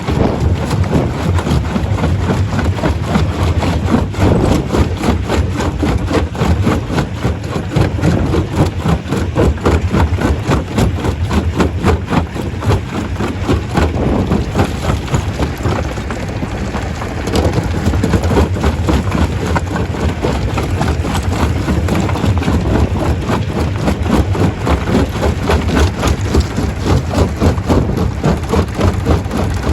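Stone crusher running under load: a dense, continuous clatter of rocks being broken and rattled through the machine over a heavy low rumble, easing off slightly for a few seconds midway.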